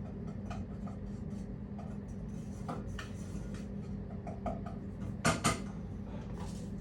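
A steady low hum with scattered light clicks and clinks, and two louder sharp clicks about a quarter second apart a little after five seconds in.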